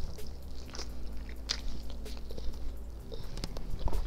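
A person biting into and chewing barbecued pork spare rib meat, with scattered short mouth clicks.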